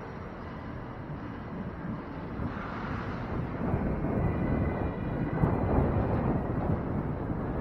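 Strong wind buffeting the microphone of a camera on a moving bicycle: a noisy low rumble that grows gradually louder.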